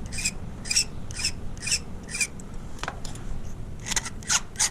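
Hand file rasping across a key blank in short, regular strokes about two a second, quickening near the end. The cuts are being filed down where the lock left impression marks, while impressioning a key for a Euro cylinder.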